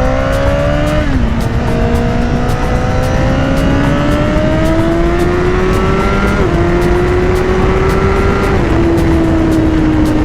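Honda CBR1000RR inline-four engine pulling under way, its pitch climbing as it accelerates, dropping with an upshift about a second in, climbing again, then easing off and falling slowly near the end. It is running clean after a misfire, caused by a loose Power Commander box, was fixed. Steady wind rush underneath.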